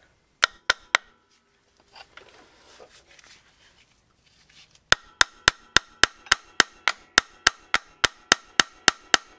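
Small hammer tapping on the side of a Polaris Sportsman 700 ATV's metal front A-arm to knock it loose from the ball joint. Three quick taps, a pause, then about halfway through a steady run of sharp, ringing taps, about four a second.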